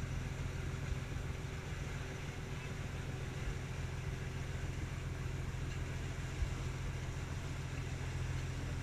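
A river cruise boat's engine running steadily while the boat is under way, a low even hum, with one brief knock about two-thirds through.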